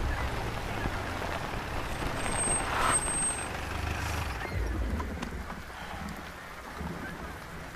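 Motor vehicle engine rumbling low, most likely the police jeep, with a sharp hiss about three seconds in, then fading to a quieter noisy background.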